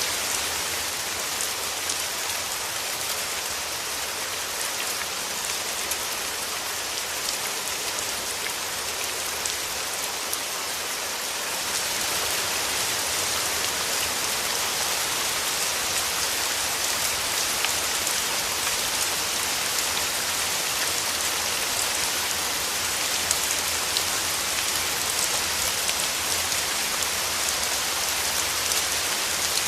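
Steady rain falling, a dense hiss of many small drop patters, growing a little heavier about twelve seconds in.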